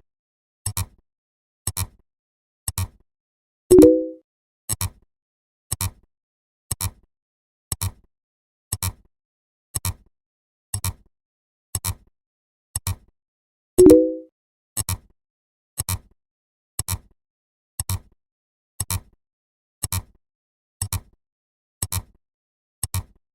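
Short sharp clicks, about one a second, with a louder brief pitched tone that fades quickly twice, about ten seconds apart.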